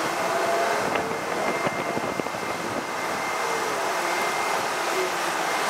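Steady rushing outdoor noise of road traffic and wind on the microphone, with a faint steady high whine.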